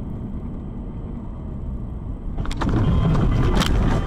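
Car driving, heard from inside the cabin as a steady low rumble of road and engine noise. About two and a half seconds in, a louder spell of sharp knocks and clatter with a high steady tone takes over for over a second.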